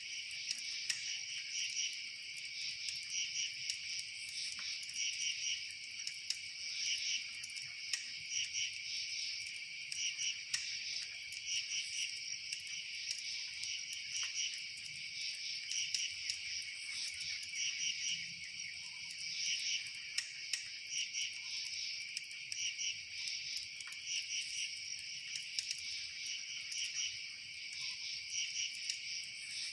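Steady chorus of chirping insects in rapid pulsed trills, with faint sharp clicks scattered through it.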